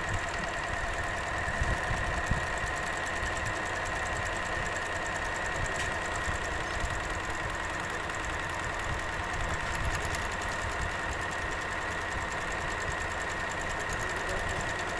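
Juki HZL-7800 computerized sewing machine running steadily at speed, its motor whining and the needle stitching rapidly. It is sewing an automatic one-step buttonhole, sized by the button held in the buttonhole foot.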